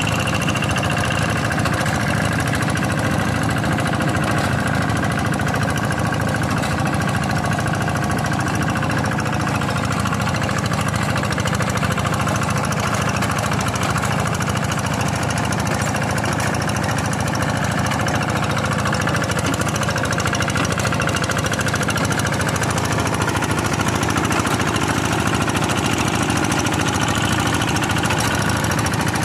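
Single-cylinder Kubota diesel engine of a Quick G1000 two-wheel hand tractor, running steadily under load while plowing a paddy field.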